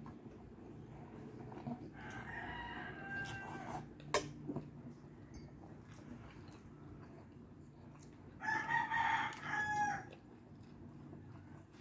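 Rooster crowing twice, each crow lasting about two seconds, the second louder. A sharp click comes just after the first crow.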